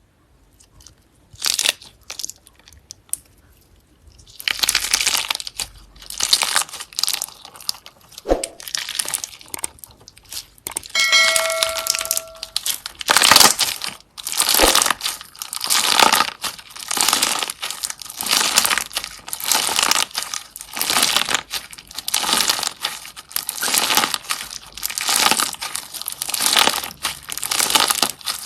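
Slime being worked by hand, making repeated crackling, crinkling squishes about once a second. A short electronic tone sounds briefly about midway.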